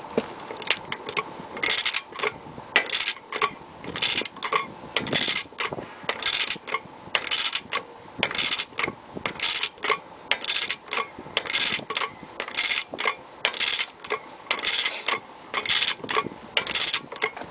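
Ratchet head of a click-type torque wrench clicking in repeated short bursts as the hub nut is cranked down toward 150 ft-lb, the wrench not yet at its setting.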